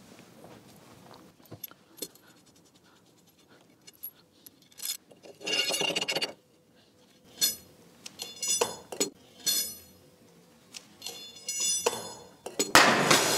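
Steel threaded rods and bracket hardware clinking and scraping against metal as they are handled and fitted through a heavy steel beam bracket, in several separate bursts. Near the end comes the loudest, longest metallic clatter, as a piece of the hardware is dropped.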